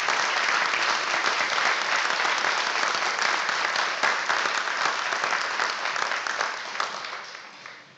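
Audience applauding, dense clapping that dies away over the last second or so.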